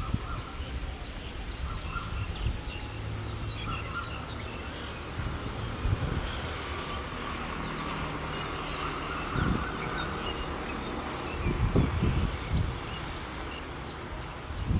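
Low, steady rumble of a diesel train locomotive approaching in the distance, with birds chirping throughout. Gusts of wind hit the microphone, loudest about nine and a half and twelve seconds in.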